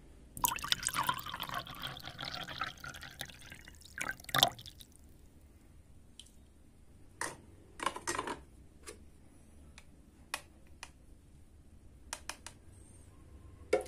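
Red liquid poured from a small plastic jug into a paper cup, splashing and trickling for about four seconds, followed by a few light plastic clicks and taps as toy kitchen pieces are handled.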